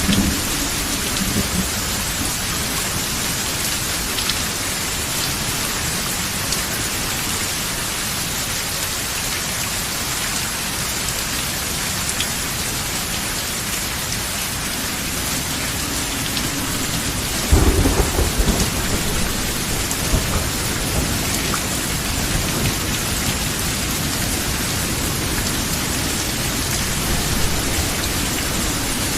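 Steady, even rain hiss of a thunderstorm. A little past halfway, a sudden low thunder rumble breaks in and fades over a second or two.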